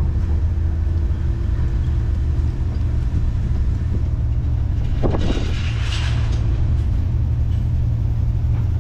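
The vehicle's engine idling with a steady low rumble, heard from inside the cab as it creeps into and settles in a parking space. A brief hissing rustle comes about five seconds in.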